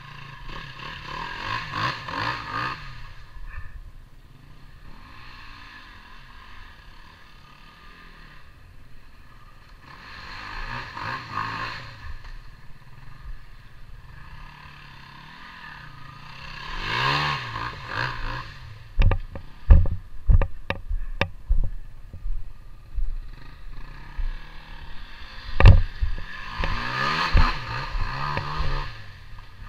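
KTM 250 EXC two-stroke dirt bike engine revving in four swelling bursts between quieter stretches as it is ridden round. Several sharp knocks come in the second half.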